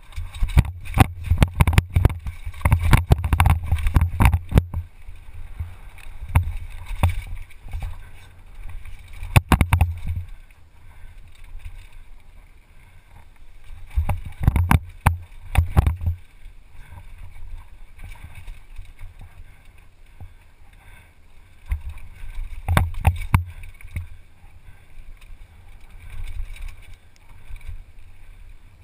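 Downhill mountain bike ridden fast over a rocky trail: a constant low wind rumble on the helmet camera's microphone, with bursts of rattling and knocking as the bike hits rocks. The longest burst fills the first few seconds, and shorter ones come a few more times.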